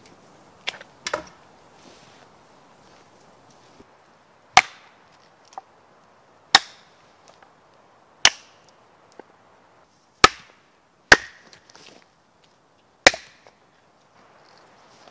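Dead wood being chopped for a campfire: six sharp, loud strikes roughly two seconds apart, after two lighter knocks about a second in.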